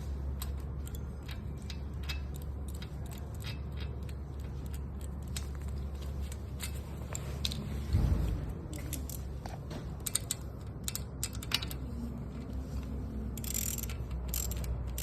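Scattered light clicks and rattles of small parts and tools being handled, over a steady low hum. There is a louder thump about eight seconds in and a short hiss near the end.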